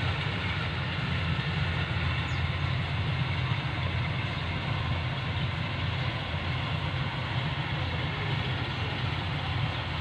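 Rice combine harvester's engine running steadily as it harvests: a constant low rumble with a hiss above it.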